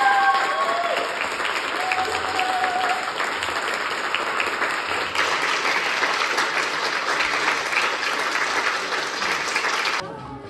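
Audience applauding, with a few voices calling out over the clapping in the first few seconds. The applause cuts off suddenly near the end.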